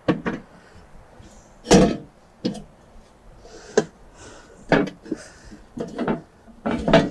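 Folding sheet-steel mangal (charcoal grill) being set down and adjusted: a string of irregular metal clanks and knocks, the loudest about two seconds in.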